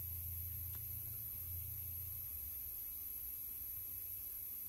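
Steady low electrical hum, easing slightly about two seconds in, with one faint click under a second in.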